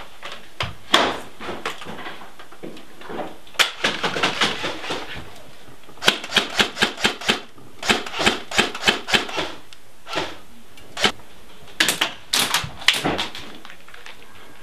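Airsoft gun firing in several bursts of rapid, sharp clicking shots, with a few single shots between the bursts.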